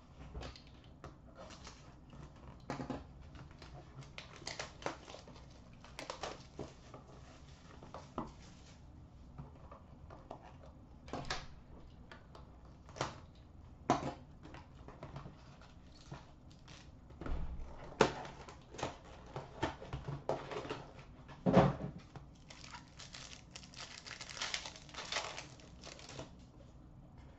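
A 2015-16 Upper Deck Contours hockey card box being opened and its foil-wrapped packs handled: scattered taps and clicks of cardboard and packs, then a stretch of dense crinkling as a pack wrapper is torn open near the end.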